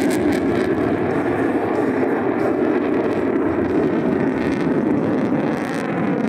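Single F135 afterburning turbofan of an F-35A Lightning II fighter, afterburner lit, giving a loud, steady jet noise as the aircraft climbs away steeply overhead.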